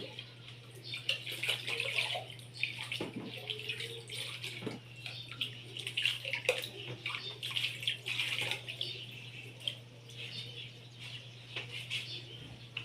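Water splashing and trickling as plastic feeding-bottle parts are rinsed by hand, with scattered light knocks.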